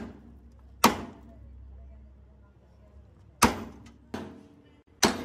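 Hammer striking metal in four sharp blows at uneven intervals, each ringing briefly, the third one weaker.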